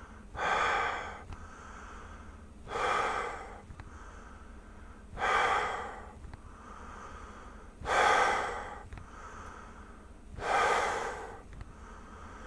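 A person breathing hard through an elastomeric respirator (Prescient X NanoMask) with both palms cupped over its filter material: five loud, rushing breaths about every two and a half seconds, with fainter breaths between. This is a check of whether glasses fog from moisture coming through the filter or from a leaking face seal.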